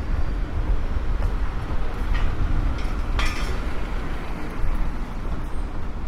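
Steady low rumble of a vehicle, with two short hissing sounds about two and three seconds in.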